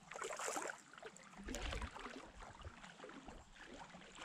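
Kayak paddles dipping and pulling through calm river water, with water trickling off the blades. Two louder swishes, one near the start and one about a second and a half in.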